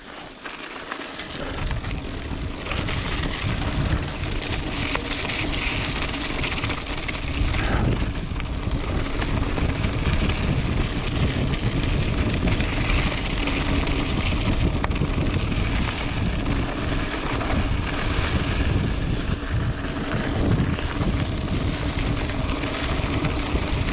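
Wind buffeting a moving action camera's microphone, mixed with tyres rolling over a dirt fire road as a mountain bike rides along. It builds about a second in and then runs on steadily.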